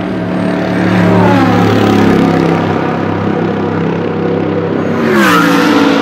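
Mercedes-Benz SLS AMG GT3's 6.2-litre naturally aspirated V8 running at low, steady revs as the race car drives slowly along the pit lane. The pitch drops about a second in, holds level, then falls sharply near the end as the car passes close.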